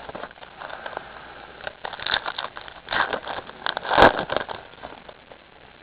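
Crinkling and rustling of a foil trading-card booster pack being torn open and its cards handled, with a sharp snap of the wrapper about four seconds in.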